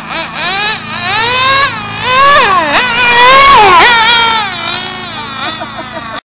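High-speed RC car's engine revving, a high whine that swoops up and down in pitch again and again, loudest in the middle, then cuts off suddenly near the end.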